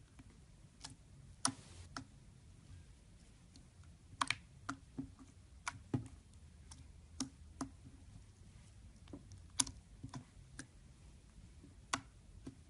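Slime being handled, giving irregular sharp clicks and small pops, roughly one a second.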